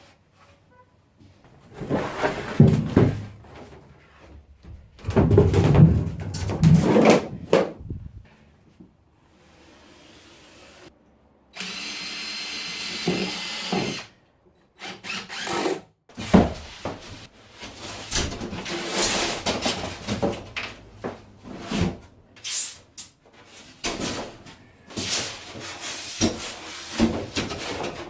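Power drill running in repeated short bursts, driving screws into plywood subfloor, with a steadier whining run about halfway through.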